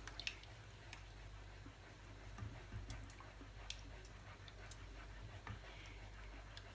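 Lemon cream being stirred in a pan on a gas stove: scattered faint clicks and ticks, a few seconds apart, over a low steady hum.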